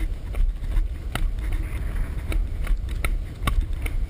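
Low rumbling wind buffeting, muffled by a GoPro's sealed waterproof case, with a handful of irregular knocks from handling and footsteps while the camera is carried on the move.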